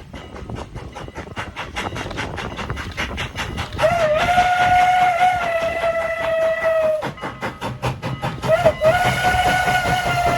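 Steam locomotive CN 89, a 2-6-0 Mogul, working with a quick, even beat of exhaust chuffs and sounding its Pennsylvania Railroad banshee steam whistle. There is one long blast starting a little over a third of the way in, a short toot, then another long blast that is still sounding at the end. Each blast sags slightly in pitch as it ends.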